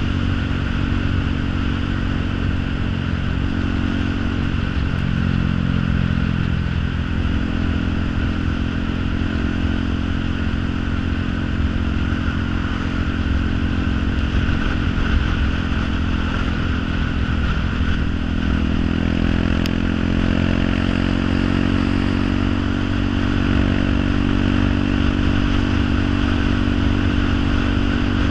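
An engine running continuously, its steady drone shifting in pitch a few times.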